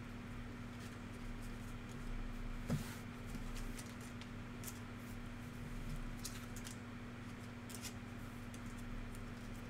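Trading cards being handled and sorted: scattered soft clicks and rustles, with one louder tap about three seconds in, over a steady low electrical hum.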